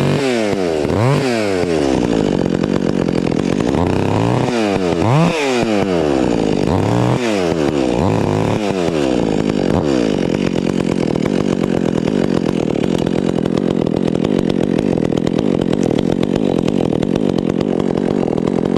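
Gas chainsaw engine revving up and down several times, then held steady at high speed from about halfway through, as when running at full throttle in a cut.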